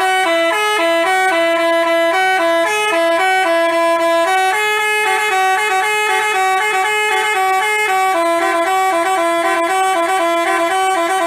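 Basuri telolet multi-tone horn playing a quick tune of short stepped notes, two pitches moving together. It starts and stops abruptly.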